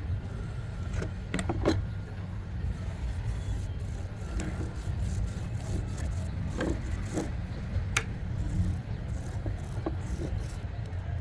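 Workshop handling noise: scattered light knocks and scrapes over a steady low rumble.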